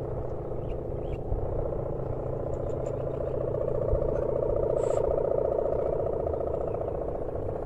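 Sendaren kite hummer on a high-flying winged kite droning steadily in the wind: a pulsing, engine-like hum of the 'mesin brujul' style, swelling a little in the middle.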